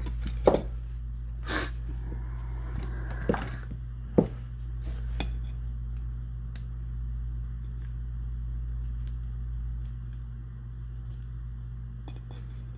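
Small steel shotgun parts clicking and clinking as they are handled and fitted back into the action, with several sharp clicks in the first five seconds and fainter ticks after, over a steady low hum.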